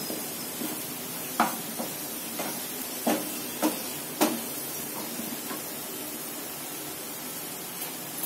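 A flat spatula stirring thick lentil dal in a frying pan, knocking and scraping against the pan about eight times over the first five and a half seconds, then going quieter.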